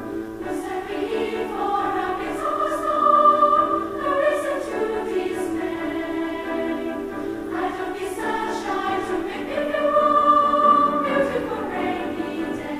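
Girls' treble choir singing a song, the voices moving in melodic phrases.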